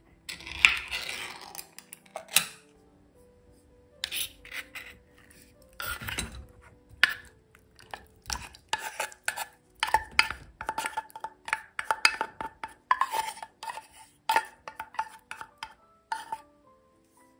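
A pull-tab lid on a tin can of tuna torn open with a rasp and a click. Then a spoon scrapes the tuna out of the metal can, with many short scrapes and clinks against the can and the stainless steel mesh strainer.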